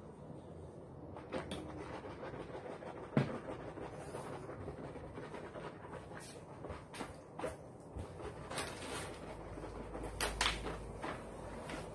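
A person drinking from a plastic shaker bottle and breathing, with scattered handling clicks and a single knock about three seconds in.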